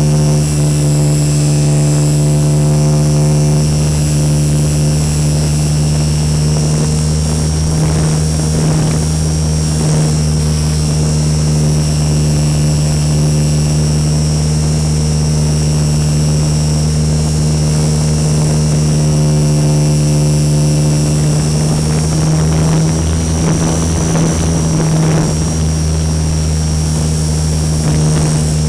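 Radio-controlled Super Cub model plane's motor and propeller running steadily in flight, heard from a camera mounted on the plane: a loud, even drone with a thin high whine above it.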